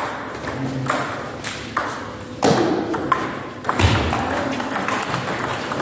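Table tennis rally: the ball clicking off the rubber paddles and bouncing on the table, sharp hits spaced under a second apart, with a heavier thud about four seconds in.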